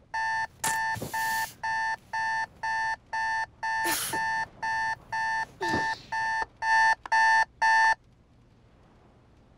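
Smartphone alarm beeping, about two beeps a second in a steady repeating pattern, with a few rustles of bedding as the sleeper stirs. The beeps get louder near the end and cut off suddenly about eight seconds in, when the phone is tapped to silence it.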